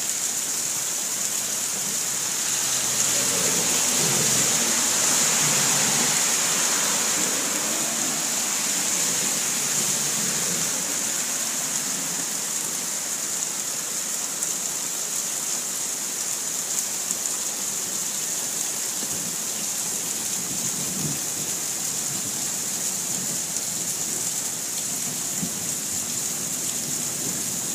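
Heavy rain pouring down steadily in a sudden downpour, with a low rumble swelling a few seconds in and fading away.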